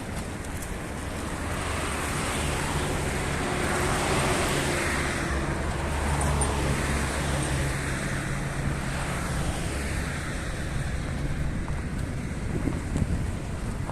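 A motor vehicle passing on the street, its low engine hum growing for a few seconds and fading away about eleven seconds in, over steady traffic noise.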